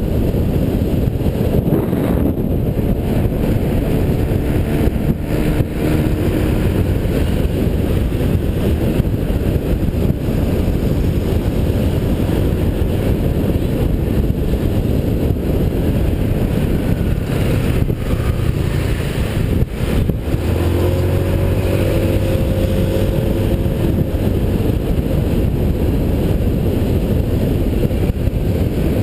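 Motorbike riding through town traffic, heard from a GoPro mounted on the bike: a steady rush of wind and road noise over the small engine. The engine note comes up clearly twice as the bike speeds up, about four seconds in and again about twenty seconds in.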